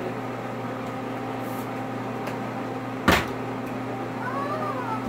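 A thrown plastic water bottle lands on a table with one sharp smack about three seconds in, over a steady low hum.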